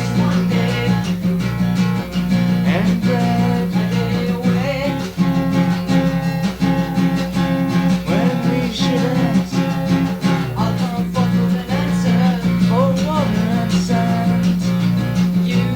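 Acoustic guitar being strummed and plucked steadily, with held low notes and bending, wavering higher notes.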